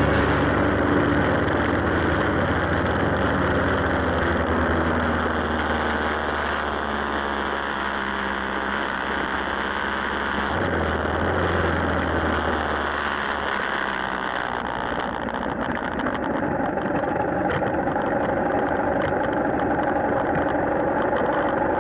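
Motorcycle engine running under way with wind rushing past the camera; the engine note shifts about halfway through.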